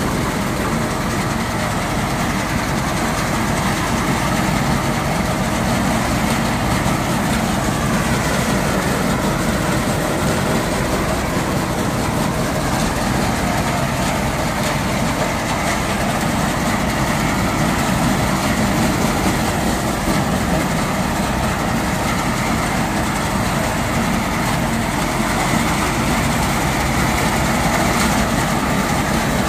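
Tractor diesel engine running steadily, driving a tractor-mounted reaper.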